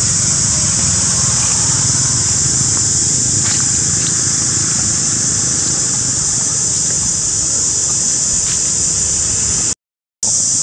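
Steady outdoor background noise: a loud, constant high-pitched hiss over a low rumble, with a few faint clicks. The sound cuts out completely for about half a second near the end.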